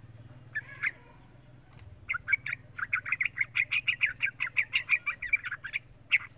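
Young yellow-vented bulbul singing: a short call about half a second in, then a fast chattering run of short notes from about two seconds in, with another quick run starting near the end.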